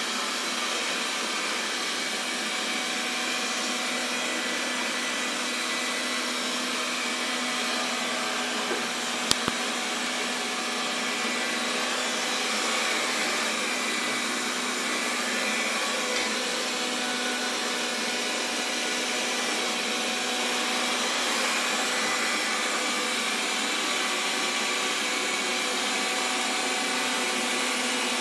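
Xiaomi Mi Robot Vacuum (Mijia) running with a steady whir, with a sharp double click about nine seconds in.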